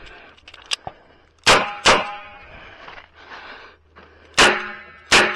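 Smith & Wesson Model 625-JM revolver firing .45 ACP: four shots in two quick pairs, with a ringing tone hanging after the later shots.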